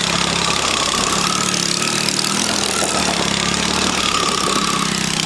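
Small gasoline engine idling steadily.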